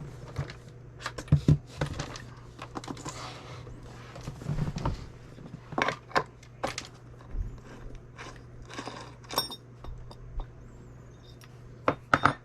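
Scattered clicks, taps and light rattles from handling RC truck wheels, tires and small hardware, with a cluster of sharper knocks near the end, over a steady low hum.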